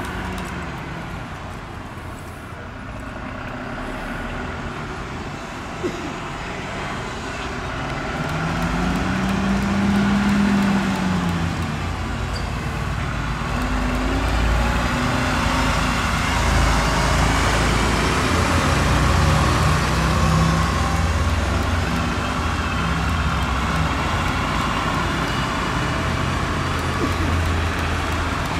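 Diesel engines of MAN fire engines pulling out of the station one after another. An engine note rises and falls about ten seconds in as a truck accelerates. The engine sound grows louder as the vehicles come closer and stays up through the second half.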